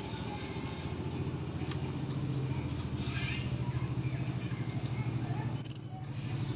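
A steady low pulsing hum of a motor or engine in the background, with one short, loud, shrill chirp from a blue-crowned hanging parrot (serindit) about five and a half seconds in.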